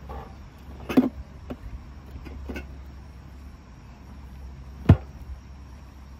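Drink cans knocking together inside a portable cooler as one is lifted out, a loud clank about a second in followed by a few lighter knocks, then the cooler's lid shutting with one sharp knock near the end.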